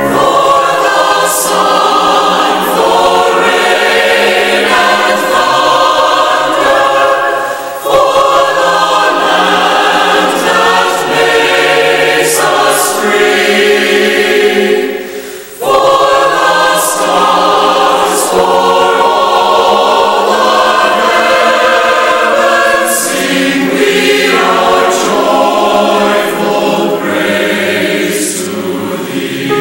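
A choir singing a hymn of praise. There is a short break between phrases about halfway through.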